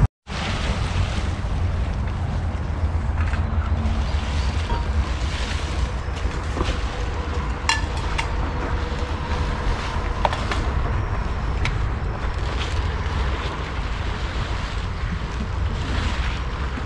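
Wind buffeting the microphone: a steady, rumbling noise with a few faint clicks.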